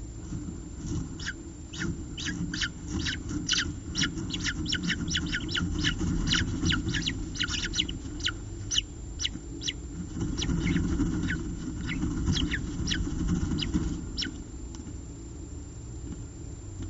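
Peregrine falcon eyases giving rapid, thin, high begging cheeps, each a quick downward sweep, several a second. The cheeps thin out over the last few seconds, and there is a steady low rumble underneath.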